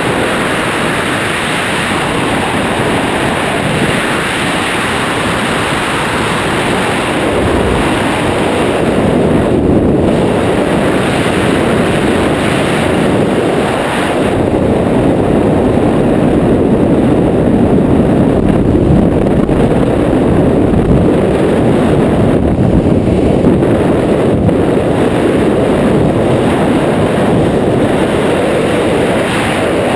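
Wind roaring over the camera microphone of a wingsuit pilot in flight, a steady loud rush that grows a little louder about halfway through.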